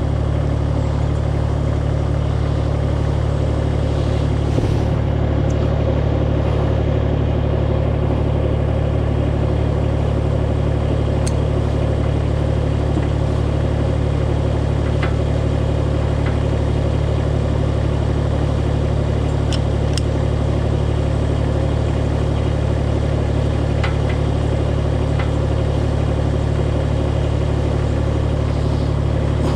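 An engine idles steadily throughout, with a low knock about four and a half seconds in and a few faint clicks later on.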